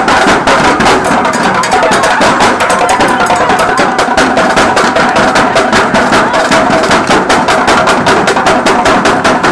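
Drill team drumline playing a fast, steady beat on snare drums, bass drums and a struck bucket drum, loud and dense with sharp strikes.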